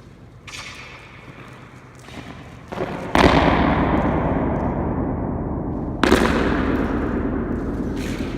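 A series of sharp bangs inside a large bunker, each followed by a long echo that takes several seconds to fade. Three lighter knocks come in the first three seconds, the loudest bang about three seconds in, and another strong one about six seconds in.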